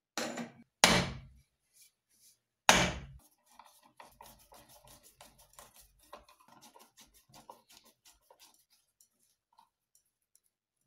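Three loud knocks of metal hardware and wooden blocks handled on a wooden workbench, then a run of rapid light clicks as a bolt with a washer is turned into a wooden beam.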